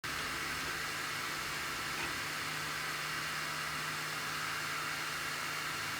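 Anycubic i3 Mega 3D printer giving off a steady screeching noise, a hissing sound with a low hum under it.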